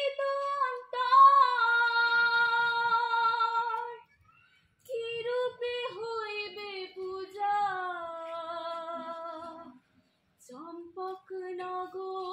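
A woman's voice singing unaccompanied in three phrases, each ending in a long held note, with short pauses between them.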